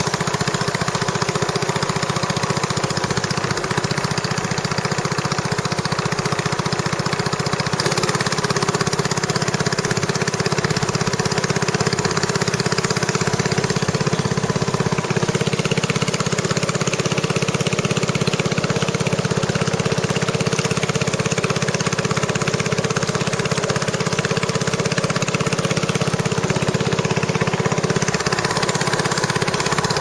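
Small boat's engine running steadily under way: a constant low drone with an even hiss of water and air above it.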